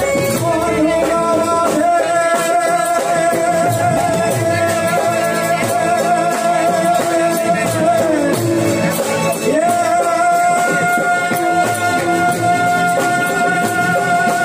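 Live amplified Gujarati devotional kirtan: a man singing into a microphone over keyboard and drums with a steady beat. The melody holds long notes, slides down about eight seconds in, then settles on a new held note.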